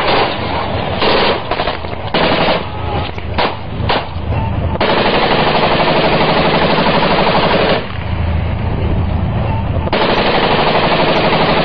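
Machine gun firing: short bursts in the first few seconds, then a long continuous burst of about three seconds, a brief lull, and another long burst near the end.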